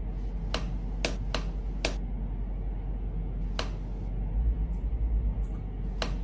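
A person making short kissing smacks with the lips, six of them at uneven intervals, over a steady low hum.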